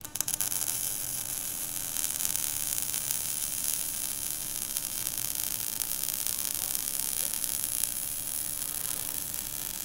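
Steady static-like hiss, strongest in the treble, with a faint steady hum beneath it, starting with a few crackles.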